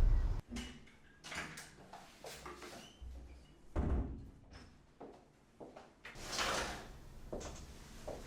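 A door shutting with a heavy thud at the start, followed by scattered knocks, clicks and a rustle as someone moves about handling things in a small room.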